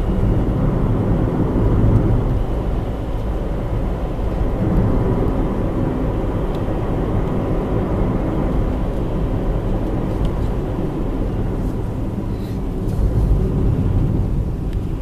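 Car driving at a steady speed, with a low, steady rumble of engine and tyre noise heard from inside the cabin.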